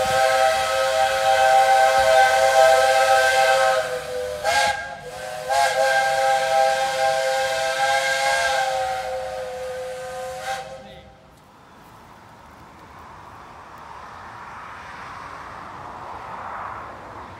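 Steam whistle of the Jeddo Coal Co. No. 85 steam locomotive blowing a chord of several notes at once: a long blast, a short one, another long blast and a final short toot, then only a fainter hiss.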